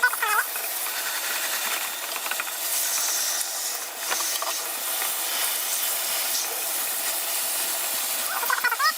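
Steady hiss, with a few light clicks and knocks a few seconds in as a plastic air filter is handled and pulled out of a wall-mounted heat pump's indoor unit.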